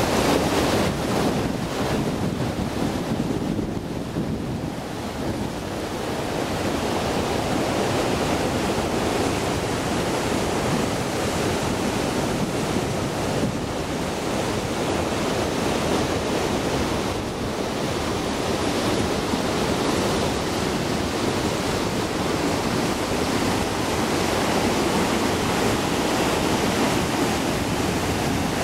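Steady rushing of the Salto Grande waterfall and the white-water rapids above it on the Paine River, a dense, unbroken wash of water noise. Wind buffets the microphone at times.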